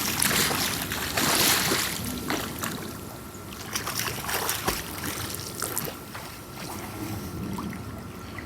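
Swimming pool water sloshing and splashing, loudest in the first two seconds and then calmer, with scattered small clicks.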